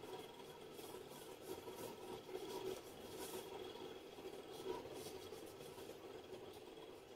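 Faint, irregular swishing of gloved hands rubbing facial cleanser over wet skin, over a low steady room hum.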